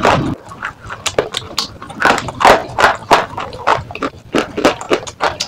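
Crisp crunching of slate pieces being bitten and chewed close to the microphone, in uneven cracks about two a second.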